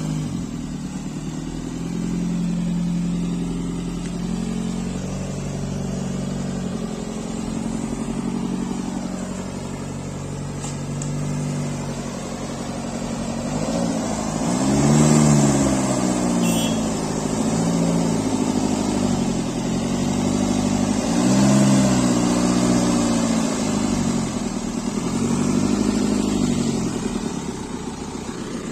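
Diesel engine of a JCB backhoe loader working, running steadily at first, then revving up and falling back again and again in the second half as it pushes.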